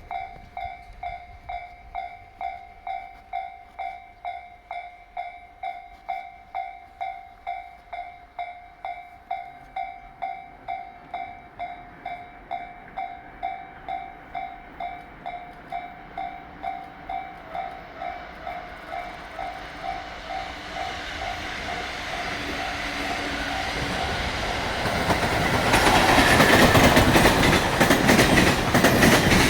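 Japanese level-crossing warning bell dinging about twice a second as a freight train hauled by an EF65 electric locomotive approaches, its rumble growing. Near the end the train passes at speed with loud rail-joint clatter from the container wagons, drowning out the bell.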